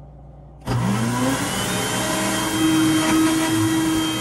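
Electric blender switching on about two-thirds of a second in, its motor whine rising as it spins up, then running steadily as it blends frozen berries with almond milk into a smoothie.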